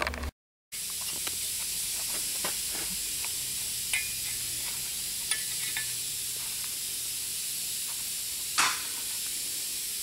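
Steady hiss with scattered light clicks and taps of metal parts being handled, one tap louder about three-quarters of the way through. It opens with a brief dropout to silence.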